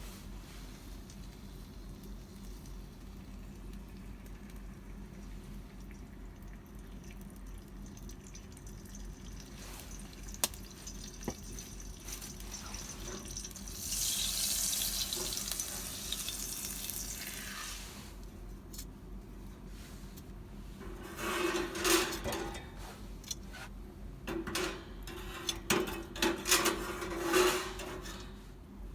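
Chicken sizzling as it cooks over a campfire, with a stronger hiss swelling and fading partway through. Near the end comes a run of sharp clatters and scrapes of cookware being handled.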